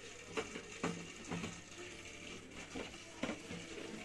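Faint scattered clicks and taps, about half a dozen, from hands working a flat ribbon cable and the boards inside an opened LED TV.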